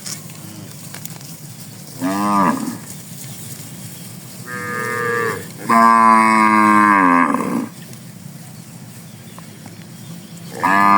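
Cattle mooing: a short falling moo about two seconds in, another around the middle followed straight away by a long, loud moo that drops in pitch at its end, and a fourth starting near the end.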